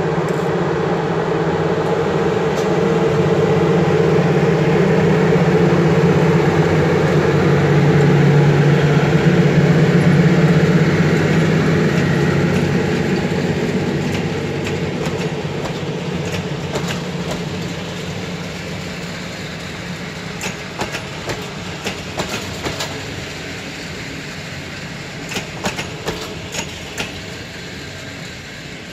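A passenger train of double-deck coaches hauled by a CFR Class 40 electric locomotive rolls past with a steady rumble. The rumble is loudest about a third of the way through and fades as the last coaches go by, with scattered sharp clicks in the second half.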